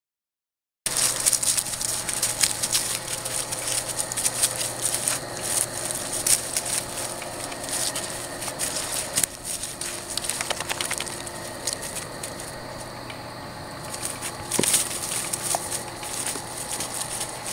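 Dry leaves and grass crackling and rustling under the paws of two deerhound puppies wrestling, an irregular run of crackles and light scuffs that starts about a second in.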